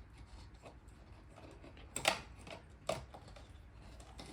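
A few light clicks and taps from hands handling small wires and parts. The sharpest click comes about two seconds in and another about a second later.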